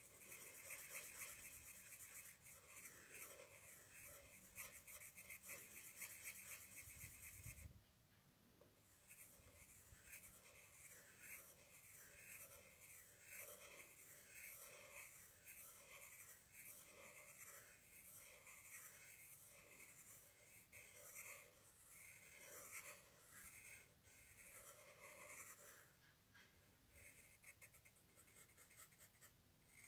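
Pen scratching quickly back and forth on paper, faint, as a small circle is scribbled in, with a short pause about eight seconds in.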